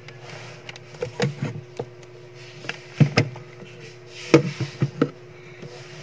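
Small clicks and taps of multimeter test-lead clips and a plastic wire connector being handled and clipped together, irregular and scattered, over a steady low hum.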